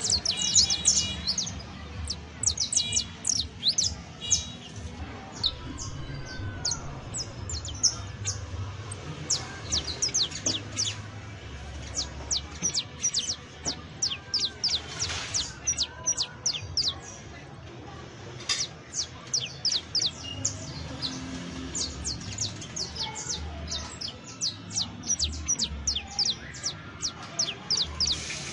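Saffron finch (Sicalis flaveola) singing: repeated bursts of fast, high, down-slurred notes, over a faint low rumble.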